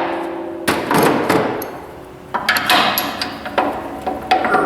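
Several hard hammer blows on steel, each with a metallic ring, driving a Kubota BX24 front loader's mounting pin that will not line up with its hole.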